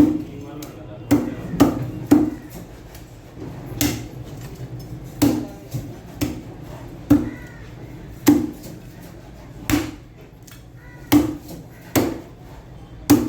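A knife chopping fish on a cutting block: a string of sharp, heavy chops, irregularly spaced, about one or two a second.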